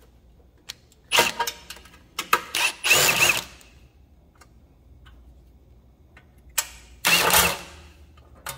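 Cordless drill driver with a 5/16 nut driver bit backing out hex-head screws from a metal panel: several short bursts of motor whine in the first few seconds, then two more near the end, with small clicks between.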